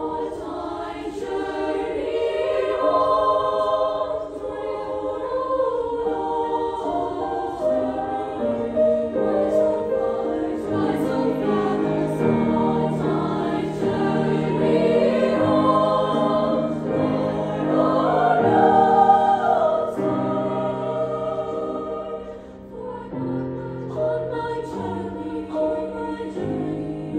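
Treble choir singing in parts with piano accompaniment. The voices build to a loud peak with wide vibrato about nineteen seconds in, then drop back briefly and carry on softer.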